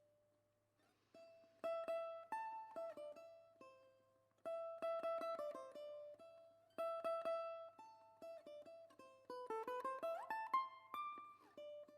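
Background music on a plucked string instrument such as a mandolin: quickly picked notes in bursts that ring out and fade, with a note sliding upward about ten seconds in.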